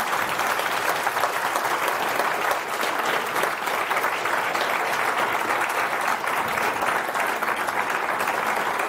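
Audience applauding, many people clapping at once in a steady, sustained round of applause.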